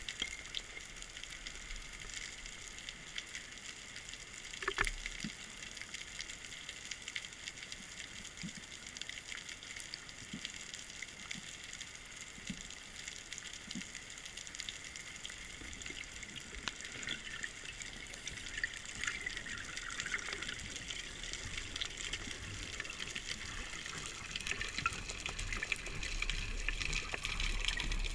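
Underwater ambience picked up by a camera in its housing: a steady watery hiss sprinkled with small crackling clicks, with one sharper click about five seconds in. It grows louder near the end, with more sloshing low water movement.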